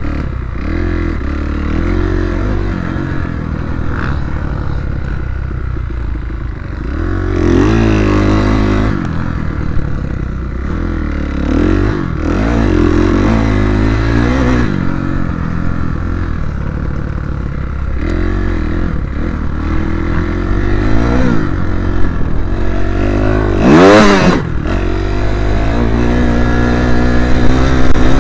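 Kawasaki KX250F four-stroke single-cylinder motocross bike being ridden on a dirt track. Its engine revs up and eases off again and again, with one sharp high rev about three-quarters of the way through.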